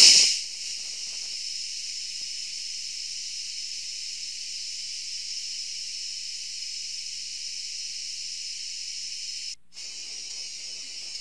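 A brief loud burst of noise, then the sound of camera-trap footage from a tropical forest: a steady, high-pitched hiss-like drone of insects. It breaks off briefly about ten seconds in and resumes.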